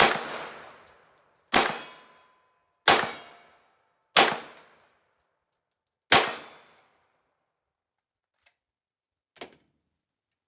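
Five shots from an MPA Defender pistol at an uneven pace, about one to two seconds apart. Each shot has a short echoing tail, and a faint ring after one of them fits a hit on a steel plate. Two small clicks follow near the end.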